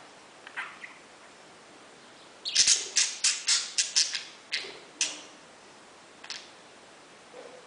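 Pet parakeet chirping: a few soft calls, then a quick run of about eight loud, sharp chirps in the middle, and one more chirp near the end.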